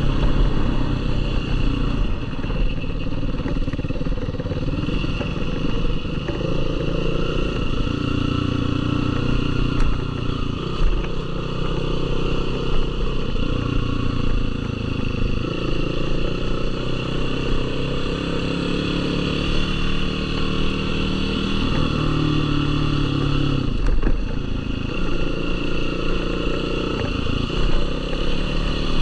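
Yamaha YFZ450R sport quad's single-cylinder four-stroke engine running on a dirt trail, its revs rising and falling repeatedly as the throttle opens and closes.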